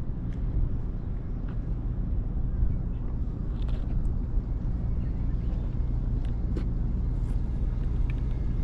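Strong wind blowing across the microphone: a steady low noise, with a few faint clicks.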